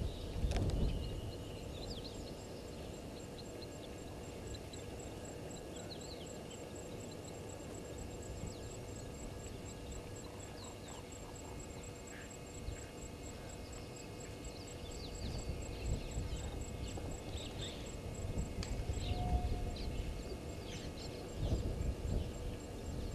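Bush waterhole ambience: scattered short, high bird chirps and a fast, even high ticking, over a low rumble that grows louder in the last third.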